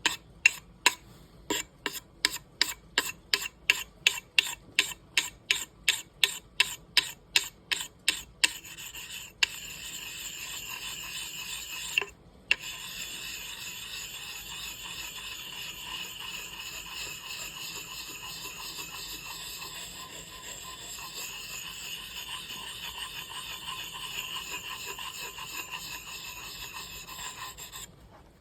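Steel axe blade being sharpened by hand on the fine-grit side of a two-sided sharpening stone. It starts as short, quick strokes, about three a second, for the first eight seconds or so. Then it turns to continuous scraping of steel on stone, with a brief break around twelve seconds in.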